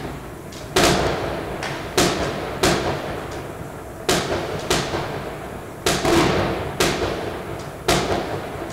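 Fireworks going off: about nine sharp bangs at irregular intervals, each followed by a long, fading echo.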